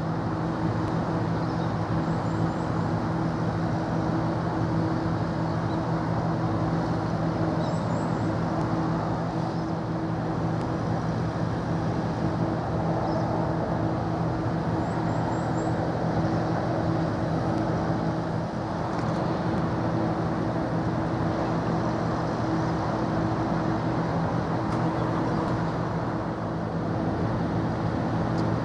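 Steady drone of distant traffic with a constant low hum, and a few faint quick high chirps.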